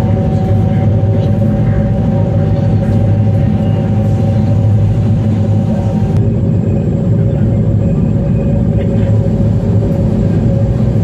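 Fast passenger ferry's engines running steadily under way, a loud low drone with steady whining tones over it; the higher of the tones stops about six seconds in.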